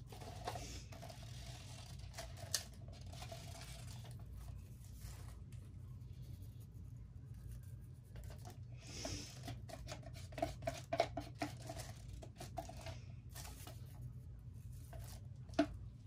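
Wooden craft stick scraping and clicking in a small plastic cup as acrylic paint is stirred: on-and-off scratchy noise with a few sharp taps, over a steady low hum.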